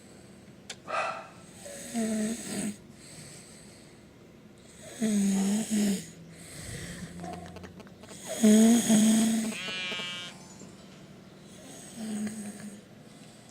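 A drunk person snoring loudly in deep sleep. There are four long, rasping pitched snores about three seconds apart, with quiet breathing in between, and the third snore is the loudest.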